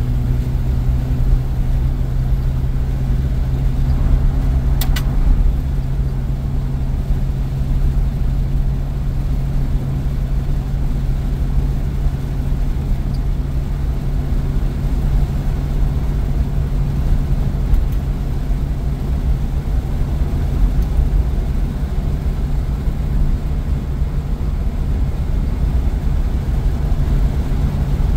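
1951 Packard 200's 288 straight-eight engine running steadily at cruising speed, heard from inside the cabin with low road rumble. A brief click about five seconds in.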